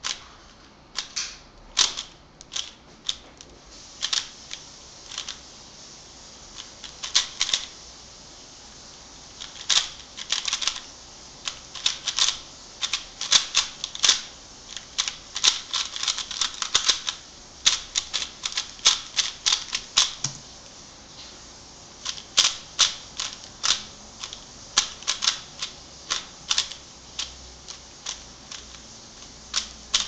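A stickerless 3x3 speed cube being turned fast by hand during a speedsolve: quick runs of sharp plastic clicks and clacks in irregular bursts, broken by brief pauses.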